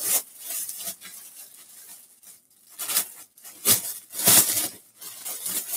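Rustling and crinkling as a parcel's wrapping and the garment inside it are handled and pulled out, in several short bursts that get louder from about three seconds in.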